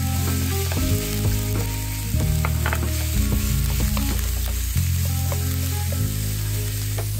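Ground beef sizzling in olive oil in a nonstick frying pan as a wooden spatula breaks it up and stirs it, with background music playing over it.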